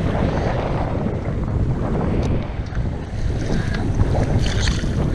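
Wind buffeting the microphone in a steady low rumble, with choppy water washing against a kayak hull and a few light clicks near the middle and toward the end.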